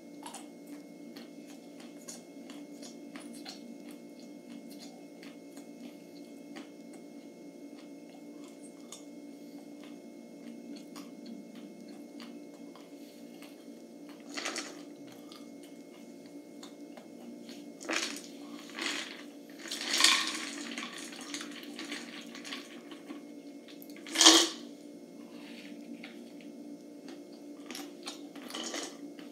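Plastic jar and small containers being handled: scattered faint clicks over a steady low hum, then a handful of short clattering, rattling noises in the second half, the loudest one about four fifths of the way in.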